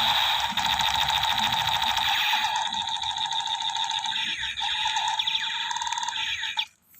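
Electronic firing sound effect from a battery-powered toy AK-47: a rapid, buzzing machine-gun rattle repeating very fast. It cuts off abruptly shortly before the end.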